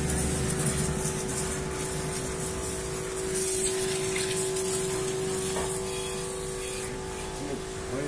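Small bike- and car-washing spray pump running with a steady hum, its high-pressure jet hissing as it sprays water onto a motorcycle's engine and bodywork.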